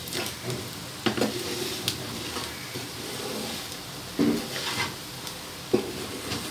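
Colocasia (arbi) pieces sizzling in oil in a non-stick frying pan while a steel spoon stirs them through spice powder, scraping and knocking against the pan several times over a steady frying hiss.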